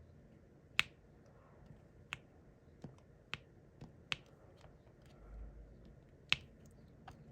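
Sharp clicks as a diamond-painting pen taps resin drills onto the sticky canvas, about seven taps at an uneven pace, with a brief low rumble a little past the middle.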